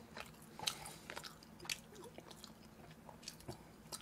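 Faint close-up chewing and mouth smacks of someone eating cheese braised chicken with glass noodles, with scattered soft clicks.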